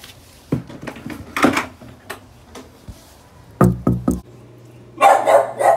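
Knocking on a wooden door: scattered light thumps, then three quick deep knocks a little past halfway, and a short louder noisy clatter near the end.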